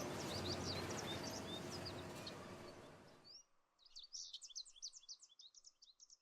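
Rapid high bird chirps and twitters over steady outdoor background noise. The noise fades out about three seconds in, leaving the chirping on its own.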